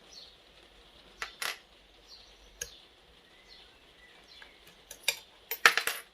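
Small steel levers from a disassembled Union 3G115 five-lever lock being handled, giving a few scattered light clicks and taps, then a short burst of ringing metallic clinks near the end.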